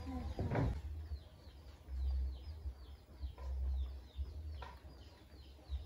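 A small bird chirping over and over in short falling notes, about three a second, with low rumbles coming and going underneath.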